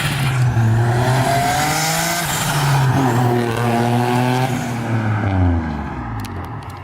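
Turbocharged Nissan 350Z running on about 5 psi of boost, accelerating hard as it drives past, its engine note dipping and climbing, then fading away over the last second or so.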